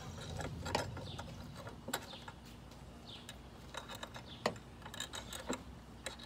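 Small metal clicks and taps of bolts and mounting hardware being handled and fitted against a steel roof rack rail, scattered and irregular, with a few sharper clicks among them.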